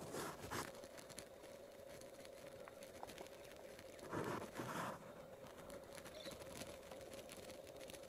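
Faint crunching and rustling of dry leaf litter under a walking double-banded sandgrouse's feet, loudest in a short bout about four seconds in.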